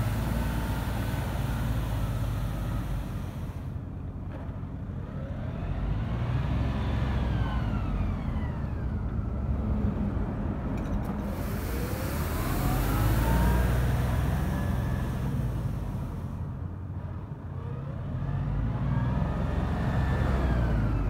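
LS XR3135 compact tractor's diesel engine running while its front brush broom sweeps the asphalt. A whine rises and falls in pitch three times as the engine sound swells and eases.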